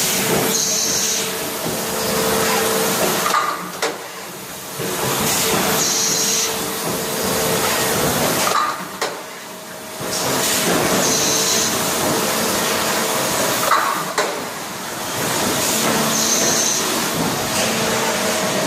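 Injection moulding machine with a side-entry take-out robot running its production cycle, repeating about every five seconds: a steady machine hum and hiss broken by short quieter gaps, with a brief high hiss and sharp clicks in each cycle.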